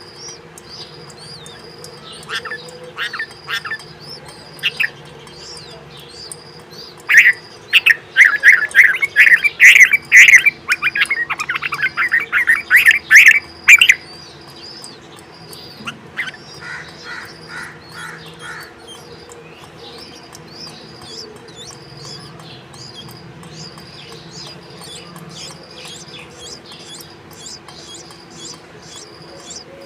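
Bulbul chicks at the nest begging with rapid, loud squawking calls, in a dense run of about seven seconds through the middle. A few short calls come before it and a softer series follows. A faint, steady high tone with small chirps runs underneath throughout.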